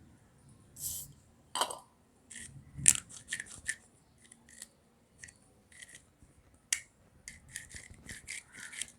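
Irregular short scrapes and clicks of small metal and plastic parts of a rusty fog lamp being worked by hand, with one sharper click near the end.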